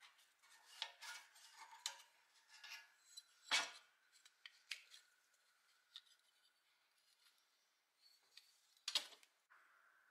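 Pliers clicking and clinking against a small pressed-steel toy road grader part being worked on a metal block, with two louder metal clanks, about 3.5 s in and near 9 s.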